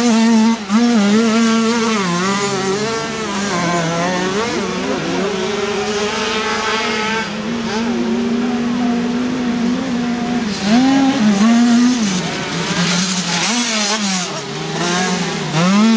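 Several small two-stroke moped-cross motorcycles revving hard as they race by, their engine notes overlapping and rising and falling in pitch with each throttle opening and gear change. The engines are louder about eleven seconds in and again near the end.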